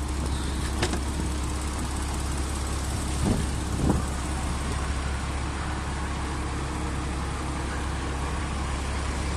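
Porsche Boxster door being unlatched and swung open: a sharp click about a second in, then two short thumps a little before the four-second mark, over a steady low rumble.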